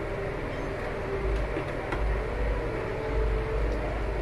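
Steady low rumble of kitchen background noise around a lit gas stove, growing heavier about a second in.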